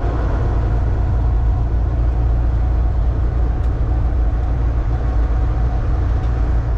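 Inside the cab of a Volvo semi truck cruising at highway speed: a steady low engine drone mixed with road and tyre noise.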